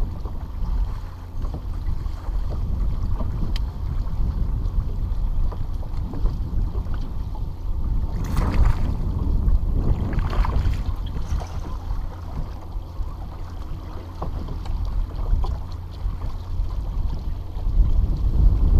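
Wind buffeting the bow-mounted camera's microphone as a steady low rumble, with small waves lapping against the boat's hull. There are two brief louder gusts about eight and ten seconds in.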